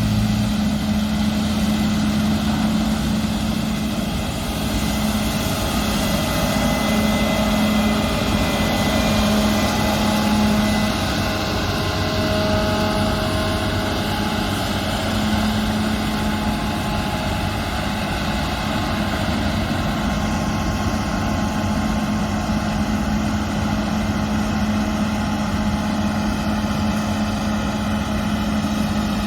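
Combine harvester running steadily at work, a constant engine drone with a strong low hum and a wash of machine noise.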